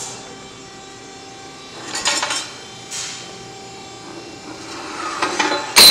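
Cut pieces of 1/2-inch steel flat bar clinking and clanking as they are handled on a steel plate, with a loud metal clank near the end. Behind it the 100-ton ironworker's motor runs with a steady hum.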